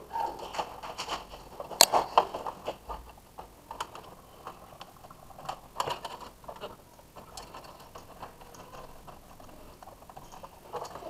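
Irregular plastic clicks and knocks as cable plugs are fitted into the ports on the back of an HP 22-inch LCD monitor and the monitor is handled, with one sharper click about two seconds in.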